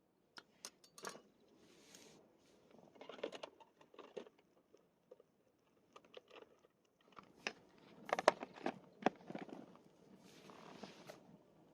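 Quiet handling noises: scattered light clicks and taps with soft rustling, most of them clustered about three seconds in and again around eight to nine seconds in.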